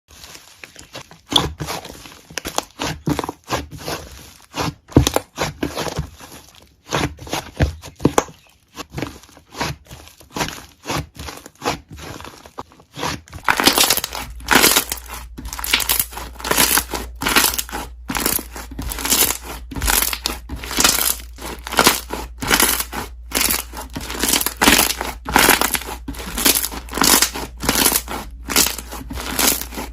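Slime being squeezed and pressed by hand, its trapped air bubbles popping in quick, dense crackles and clicks. About thirteen seconds in, another recording takes over, the pops denser over a steady low hum.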